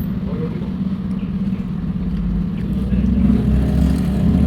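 Car running on the road, heard from inside the cabin: a steady low engine and road hum that grows louder about three seconds in.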